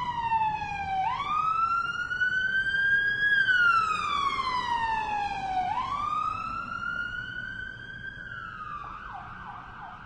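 Electronic emergency-vehicle siren on a slow wail, falling and rising twice. About nine seconds in it switches to a fast yelp. It grows steadily fainter.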